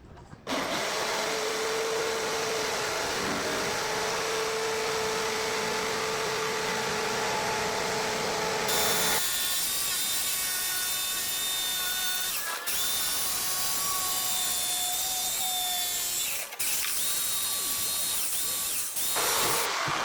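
Electric power tool running steadily. About nine seconds in, its sound changes to a brighter pitch, and it stops briefly a few times after that.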